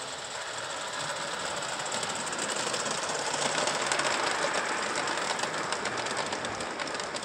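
Gauge 1 model train running past on garden track: the rolling rumble of its metal wheels on the rails grows louder as it comes close, with a quick run of sharp clicks through the second half as the coaches go by.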